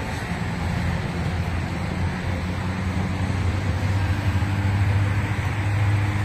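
A steady low mechanical hum over a rumble, growing a little stronger about four seconds in.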